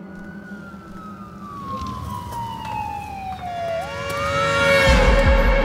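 A siren wail: one slow falling glide that sweeps back up about four seconds in, growing louder. Near the end, music with a heavy low pulsing beat comes in.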